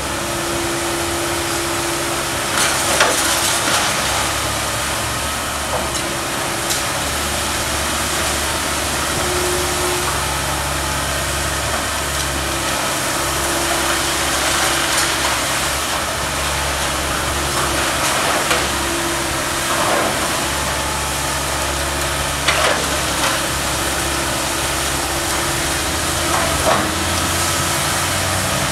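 Komatsu PC160LC hydraulic excavator's diesel engine running steadily while its demolition pole tears into a wood-frame house, with several sharp cracks and crashes of splintering wood and falling debris at irregular intervals.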